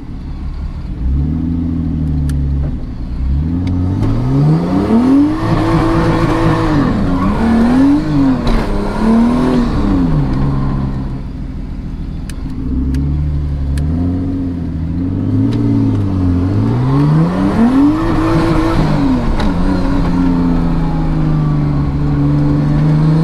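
Nissan Cefiro A31's engine, straight-piped with no muffler, heard from inside the cabin as the car pulls away: the engine note climbs and drops several times with the gear changes, in two runs, then holds steady near the end.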